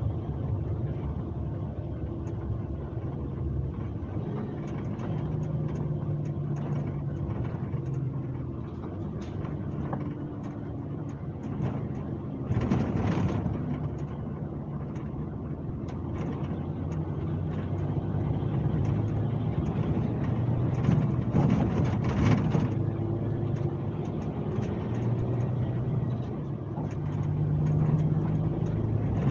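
Scania K370C coach's five-cylinder diesel running under way, heard on board over road noise, its note shifting up and down in pitch a few times. Two short rushes of hissing noise stand out, about 13 seconds in and again around 21 to 22 seconds in.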